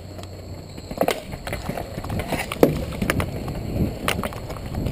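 Roller hockey play on a hard outdoor court: irregular sharp clacks and knocks of sticks and puck, with inline skates scraping and striking the surface as players skate off a faceoff. The sharpest knock comes a little past halfway.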